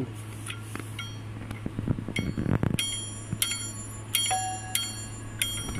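Steel compressor parts clinking against a metal tool: about six sharp metal-on-metal strikes from about two seconds in, each leaving a short high ring, over a steady low hum.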